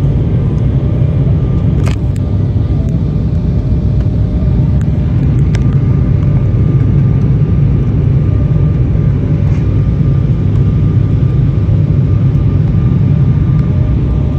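Jet airliner cabin noise on the descent to landing: a steady low rumble of engines and rushing air with a faint steady whine over it. A single sharp click about two seconds in.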